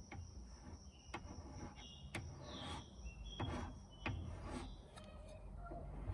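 Faint outdoor background with short, high bird chirps and a few scattered clicks or taps.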